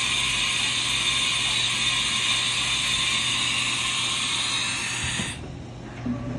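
1994 Haas VF-2 CNC vertical machining center going through a tool change on its umbrella-style tool changer: steady mechanical clattering with a loud hiss that cuts off suddenly about five seconds in, leaving a lower machine hum.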